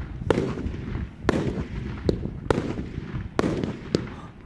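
Aerial fireworks bursting overhead: a run of about six sharp bangs over a low rumble, easing off near the end.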